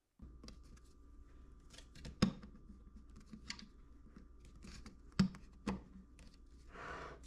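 Hands handling a flexible 3D-printed back cap as it is worked into the metal rear cell of an Apertura Carbonstar 150 telescope: scattered light clicks and taps, sharper knocks about two and five seconds in, and a brief rub near the end, over a faint steady hum.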